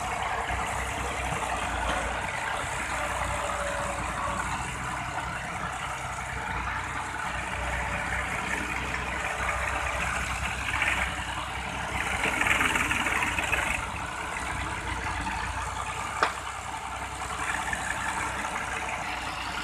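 Massey Ferguson 260 tractor's diesel engine running steadily, with a brief louder stretch around twelve seconds in and a single sharp knock a few seconds later.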